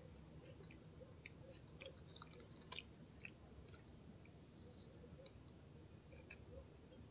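Near silence: quiet outdoor air with faint, scattered short high ticks.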